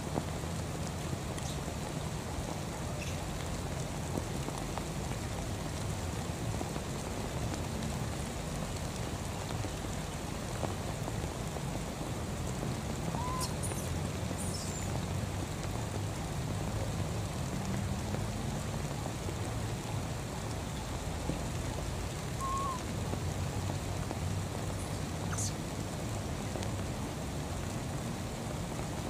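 Steady rain falling on water and grass, an even patter with no break, and a couple of faint short chirps partway through.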